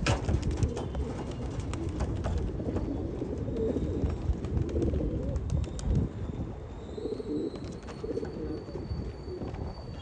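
Domestic pigeons cooing, low throaty coos repeating on and off.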